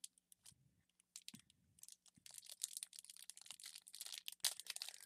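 Foil wrapper of a Pokémon booster pack crinkling and tearing as it is opened: scattered crackles at first, turning into dense crinkling about two seconds in.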